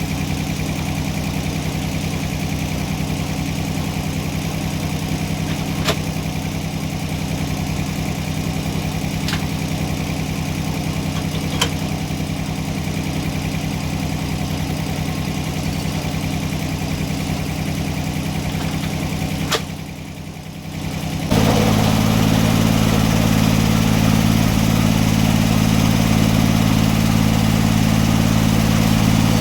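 An engine running steadily, with a few sharp ticks or knocks over it. Near two-thirds of the way through it drops away briefly, then comes back louder with a different pitch.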